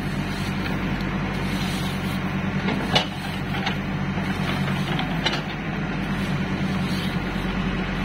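JCB backhoe loader's diesel engine running steadily under load as the bucket digs soil. There are two sharp knocks from the working machine, the loudest about three seconds in and another about five seconds in.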